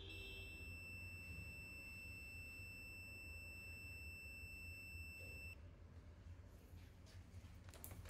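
A single steady, high-pitched electronic beep, held for about five and a half seconds and then cut off, over a low steady hum. A few sharp clicks come near the end.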